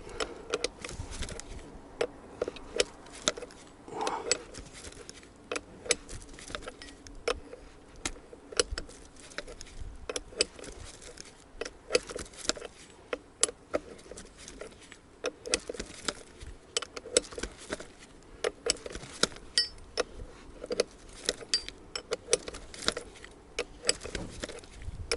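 Hand wrench clicking and clinking on metal as the nut on an old rear shock-absorber strut is turned, a long run of irregular sharp clicks.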